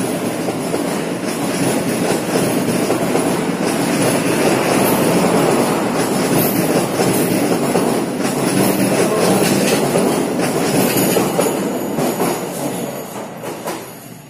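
Passenger train coaches rolling past on the rails: a steady rumble of wheels on track with clicks as the wheels cross rail joints, fading away near the end as the last coach goes by.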